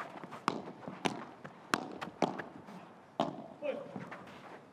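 Padel ball being hit back and forth in a rally: sharp pops of the ball off the rackets, with bounces off the court, coming roughly every half second to second, the loudest near the middle.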